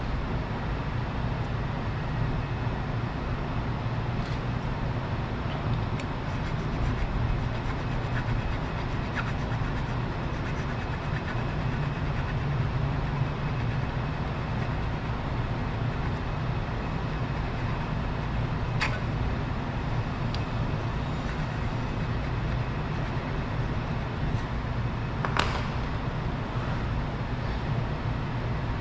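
Steady low workshop background rumble, with a few sharp isolated clicks, the loudest a little before the end.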